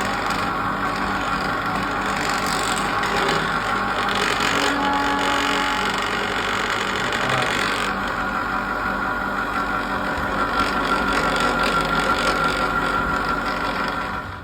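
Chocolate factory machinery running steadily, a continuous mechanical noise with faint steady whining tones in it.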